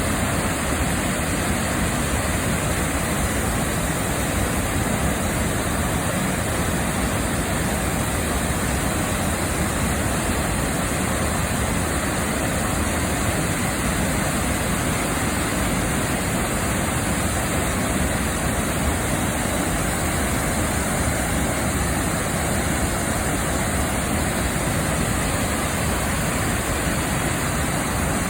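Sandan Falls, a three-tiered waterfall, rushing steadily: an even, unbroken roar of falling water.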